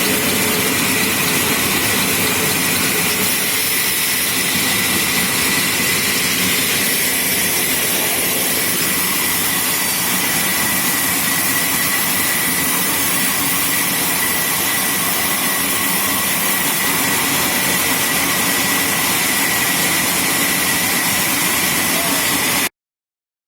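Sawmill machinery running steadily: a constant mechanical noise with a thin high whine, cutting off suddenly near the end.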